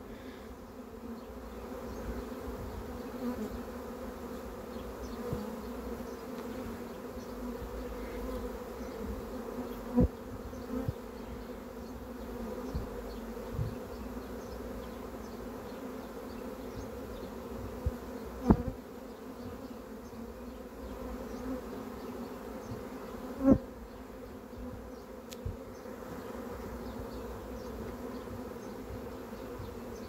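A swarm of honeybees buzzing steadily as they fly around and walk into a swarm-catching box. Three brief sharp louder sounds stand out about ten, eighteen and twenty-three seconds in.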